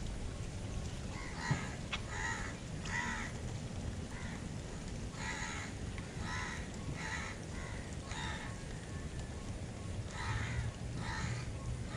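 A bird calling again and again, about a dozen short calls in three spells, over a steady low background rumble.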